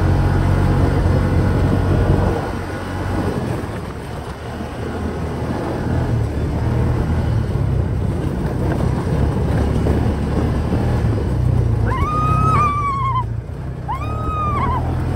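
Steady low rumble of a vehicle on the move. Near the end come two short pitched toots that rise and fall.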